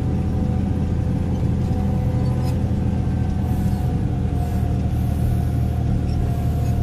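Caterpillar 140K motor grader's diesel engine running steadily in fourth gear while grading crushed rock, heard from inside the cab.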